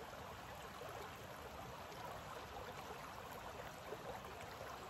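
Shallow creek running over rocks: a steady, faint rush of flowing water.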